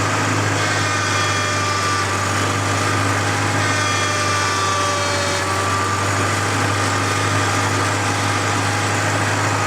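Tractor engine running steadily, driving the hydraulics of a homemade backhoe as it is worked through its range of motion. A thin whine rises over the engine for a few seconds mid-way, bending slightly in pitch, then fades.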